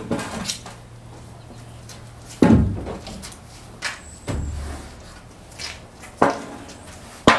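Several sharp wooden knocks and thuds at uneven spacing, a second or two apart, from lumber roof trusses being shifted and bumped against the house's wood wall framing.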